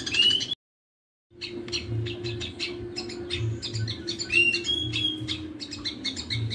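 Mixed bird-training recording of Eurasian tree sparrows' fighting chatter and a grey-cheeked bulbul: rapid chirping with a few rising whistled notes. The sound drops out completely for under a second about half a second in.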